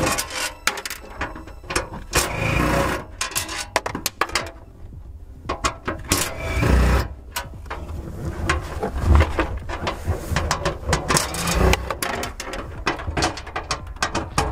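Cordless power ratchet running in short repeated bursts as it backs bolts out of a sheet-metal trunk panel, with sharp ratcheting clicks and metal clinks in between.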